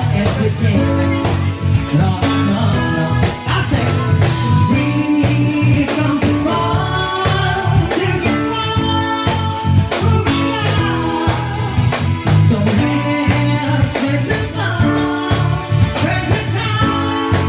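Live band playing an upbeat dance number: a singer on a handheld microphone over electric keyboards and a drum kit, with a steady beat throughout.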